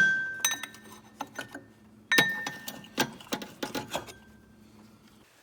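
Metal hand tools and parts clinking and knocking: a run of sharp clicks and clanks, a few with a short ring, thinning out near the end.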